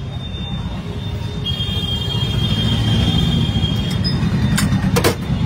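Road traffic rumbling close by, a motor vehicle growing louder about a second and a half in, with a thin high whine over it for a couple of seconds. Two sharp clicks near the end.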